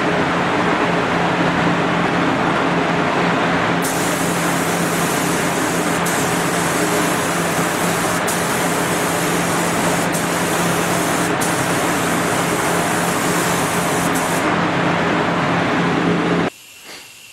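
Gravity-feed paint spray gun hissing as paint is sprayed, over a steady mechanical hum with a low drone. The sharper hiss of the gun comes in about four seconds in and stops a couple of seconds before the end, and everything cuts off abruptly just before the end.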